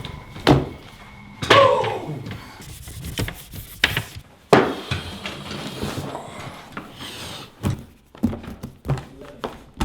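A handful of separate knocks and thuds in a small room, spread irregularly.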